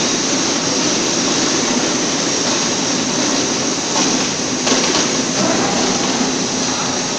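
Electric screw-adjustment drive of a heavy welding rotator running steadily as its gearmotor turns the lead screw that moves the roller stand along the frame, with a few short knocks about four to five seconds in.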